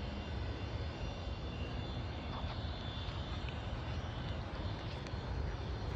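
Distant private jet's engines running steadily: an even low rumble with a faint high whine, not rising into a takeoff.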